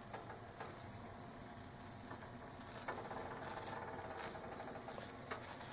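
Faint sizzling of a rice-and-coconut-milk pancake cooking in a nonstick frying pan, with a few light ticks over a low steady hum.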